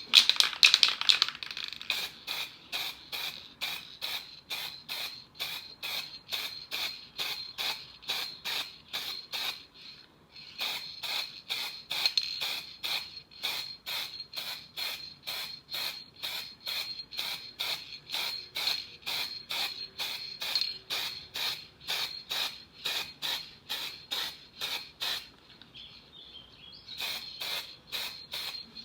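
Quick back-and-forth rubbing strokes by hand on a small part, about three a second, stopping briefly twice.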